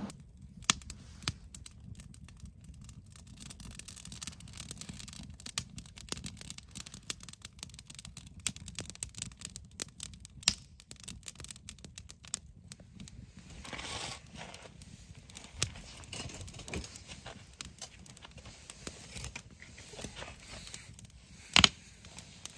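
Split firewood burning in a steel fire ring, crackling with irregular sharp snaps and pops, one loud pop near the end.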